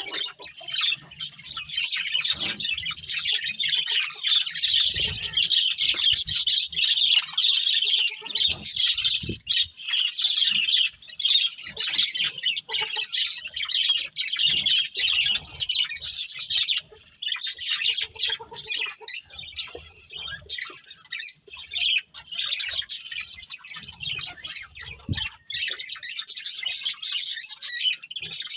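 A colony of budgerigars chirping and chattering continuously, many birds at once, with a few soft low thumps.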